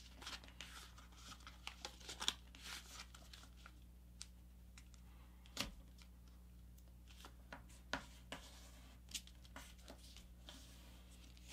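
Faint rustling and crinkling of a sheet of letter-size printer paper being folded and creased by hand, in scattered short bits, with one sharper tick about halfway through.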